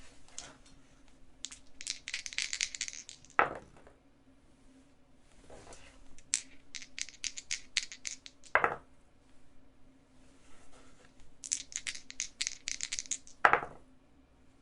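A pair of dice clattering in three rounds: each is a run of quick small clicks that ends in one louder knock.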